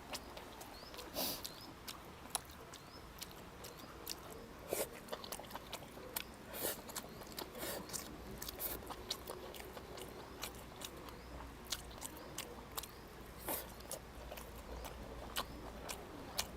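People chewing and biting food at a meal, with irregular light clicks and scrapes of eating.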